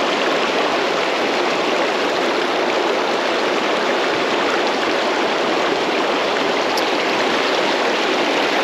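River water rushing steadily, a constant even roar of flowing current with no breaks.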